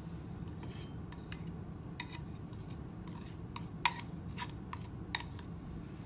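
Ground spices being scraped and tapped off a plastic tray into a glass bowl with a spatula: a run of light scrapes and clicks, the sharpest about four and five seconds in.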